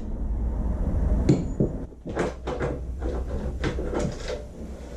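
Scattered clicks and knocks of parts and tools being handled as the carburettor and throttle cable come off a Yamaha YZ250 two-stroke dirt bike, with a low rumble over the first two seconds.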